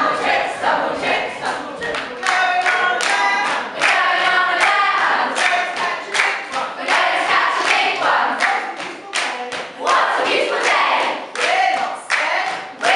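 A large group of voices, mostly women's, singing and chanting an action rhyme in unison, with sharp claps in quick succession.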